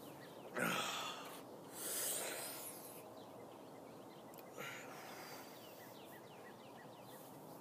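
A man breathing forcefully, as deep breaths to prepare for a forced burp: a sharp intake about half a second in, a longer breath of air around two seconds, and a weaker breath near five seconds.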